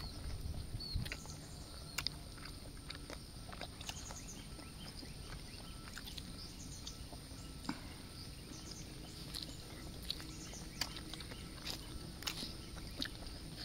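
People eating sisig (chopped grilled pork) by hand: chewing with scattered irregular mouth clicks and smacks, over a faint steady outdoor background.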